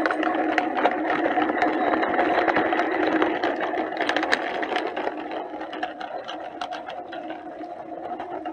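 Small electric motor and gearbox of a toy construction vehicle whirring steadily, with many rattling clicks over it, easing a little in the second half.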